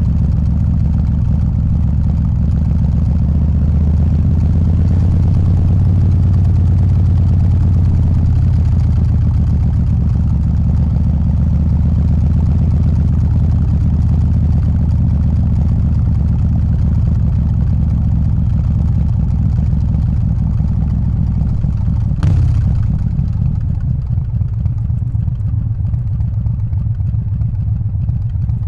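Harley-Davidson Softail's 124 cubic inch S&S Evo V-twin running at low city speed, with a single sharp click about three quarters of the way through, after which the engine eases off and runs quieter.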